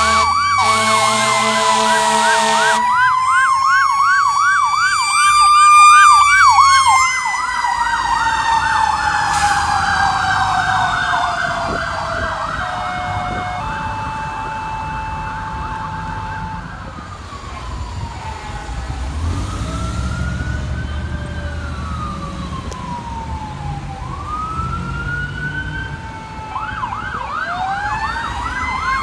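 Fire truck sirens: an electronic yelp cycling fast over a slower wail, with an air horn blaring for the first few seconds. Midway the siren tone slowly falls away, and it climbs again near the end as the sirens start back up.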